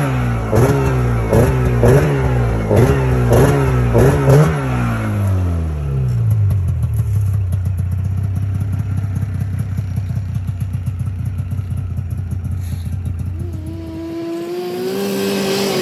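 1997 Yamaha Phaser II snowmobile's two-stroke engine running, revved in quick throttle blips about one and a half times a second for the first few seconds, then settling to a steady idle. Near the end the idle gives way to a higher engine note that climbs slowly.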